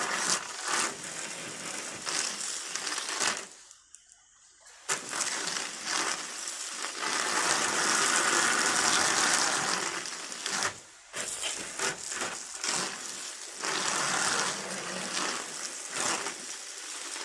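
Campfire being doused with water, a steady hiss of water and steam on the hot embers, breaking off for about a second and a half around four seconds in and dipping briefly later.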